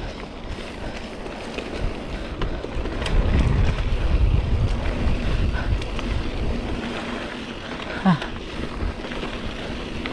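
Wind buffeting the microphone of a mountain bike rider on a dirt trail, with tyre and bike rattle under it; the low wind rumble swells from about three seconds in until about five and a half. A brief rising note is heard near eight seconds.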